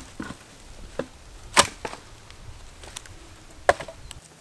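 A long bush blade chopping into a dead fallen log. Two sharp chops about two seconds apart, the first the loudest, with a few lighter knocks between.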